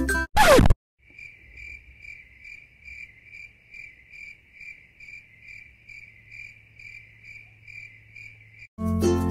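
A short sweep falling in pitch as the background music cuts off, then crickets chirping steadily, about two to three chirps a second, a sound effect laid in for a comic pause; the music comes back in near the end.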